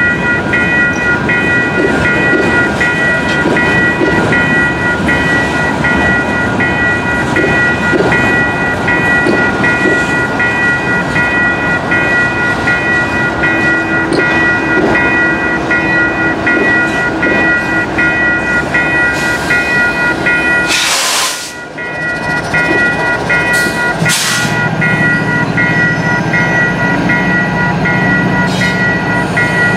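Freight train passing over a level crossing: the boxcar wheels rumble and clatter on the rails while the crossing's warning bell rings steadily. Near the end the BNSF diesel locomotives come past, adding a steady deep engine hum.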